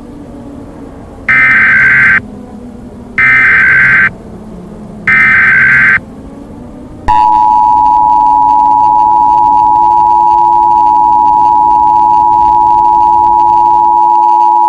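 Emergency Alert System tones marking the start of an alert. First come three short screeching bursts of SAME header data, about a second apart. Then from about seven seconds in the steady two-tone EAS attention signal (853 and 960 Hz) sounds, over a low background hum.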